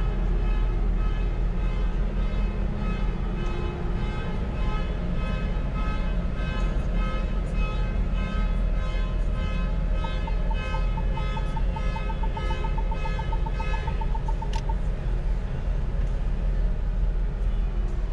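Steady low rumble and droning hum of a car ferry's machinery, heard from inside a car on the enclosed vehicle deck. From about ten seconds in, a rapid run of short high beeps lasts about five seconds, and the droning hum fades soon after.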